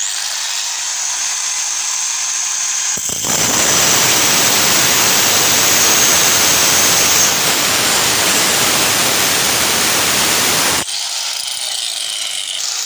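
Electric angle grinder with a worn armature switched on and running, with a high whine. About three seconds in it becomes much louder and rougher for roughly eight seconds, then drops back near the end. The rough, weak running is the sign of the worn armature ('ngorok', lacking power).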